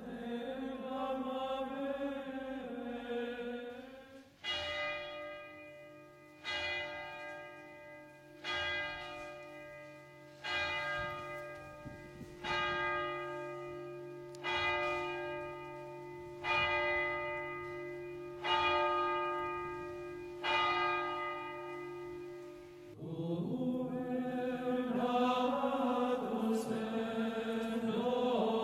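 Chanted singing, then a single church bell tolling nine times, one stroke about every two seconds, each ringing out and fading. The chanting returns near the end.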